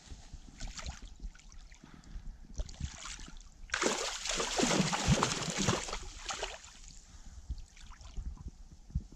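A hooked mirror carp splashing and thrashing in shallow margin water as it is landed, a loud flurry of splashing about four seconds in that lasts about two seconds, with lighter water noises and small knocks around it.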